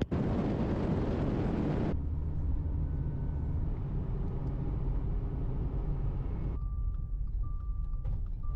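Steady road and engine noise inside a moving car, its character changing abruptly about two seconds in and again near the end. In the last two seconds the noise is a lower rumble, with a faint beep coming on and off.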